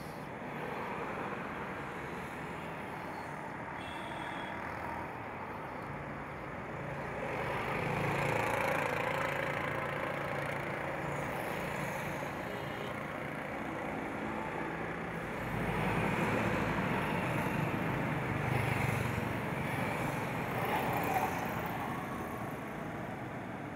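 Road traffic passing close by, a steady hum of tyres and engines that swells as vehicles go by, loudest about eight seconds in and again from about sixteen seconds in.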